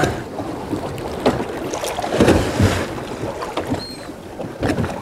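Water sloshing against a boat's hull, with wind noise on the microphone and a louder surge of noise a little after two seconds in.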